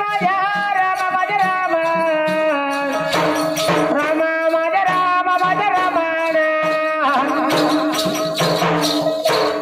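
Marathi gondhal folk music: a sustained melody that steps from note to note and wavers in places, over a steady rattling percussion beat.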